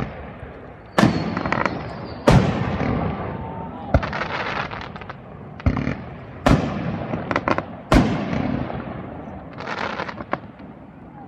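Aerial firework shells bursting close overhead: about half a dozen loud bangs a second or two apart, each rumbling away afterwards, with bursts of rapid crackling in the middle and near the end.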